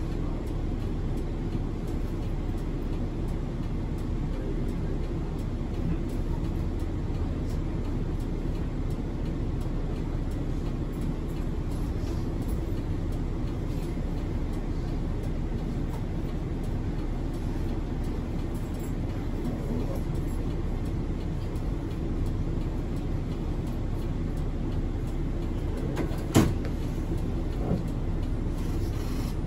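A city bus running steadily, with its low engine and road rumble heard from inside the cabin. About 26 seconds in there is a sharp knock, followed by a smaller one a second or so later.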